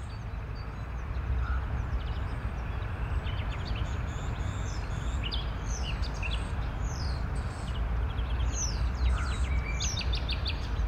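Nature ambience of several small birds chirping, with short falling whistles and quick runs of repeated notes, over a steady low rumble and hiss.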